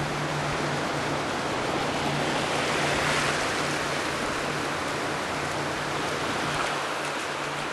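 Rushing water and wind hiss from a small flats boat underway, with a steady low engine hum beneath. The rush swells about three seconds in.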